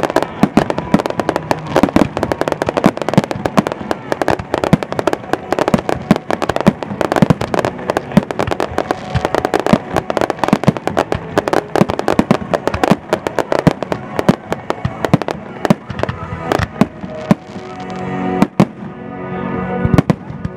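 Aerial fireworks barrage: many shells bursting and crackling in quick succession, several bangs a second, thinning out near the end. Music plays underneath.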